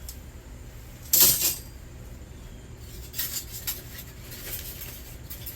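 A length of scrap copper tubing tossed onto a pile of scrap metal: one loud metallic clatter about a second in, then a few lighter clinks as scrap is handled.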